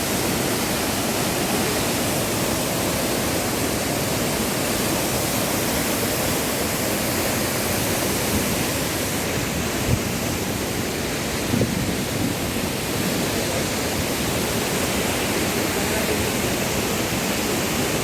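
Close waterfall pouring in a loud, steady rush, with a couple of brief handling knocks partway through.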